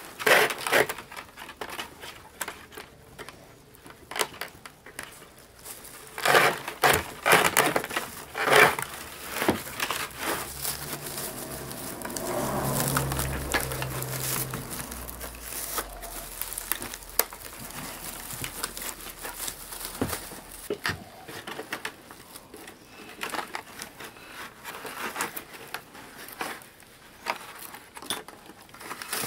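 Dry plant strips rustling and crackling as they are drawn through the weave and bound around the rim of a woven bamboo winnowing basket, in irregular bursts that are densest about six to nine seconds in. A low hum sounds briefly about twelve seconds in.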